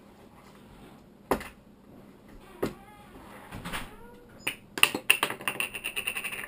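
A boy's silly vocal noises: a couple of clicks and faint, squeaky, meow-like glides, then a fast run of clicking, several a second, near the end.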